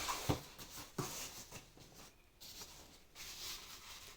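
Soft handling noises from unboxing: a light knock just after the start and another about a second in, then faint rustling of packaging.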